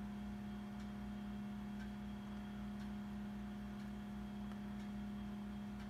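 A steady low hum with a faint regular pulse underneath, and soft faint ticks about once a second.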